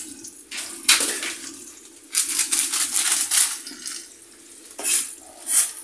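Sliced onions frying in oil in a pan, sizzling in irregular bursts: one about a second in, a longer stretch from about two to three and a half seconds, and shorter ones near the end. A low steady hum runs underneath.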